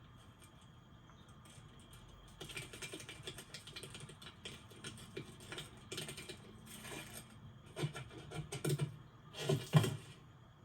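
Flurries of rapid small clicks and taps, coming in several bursts, with the loudest cluster near the end.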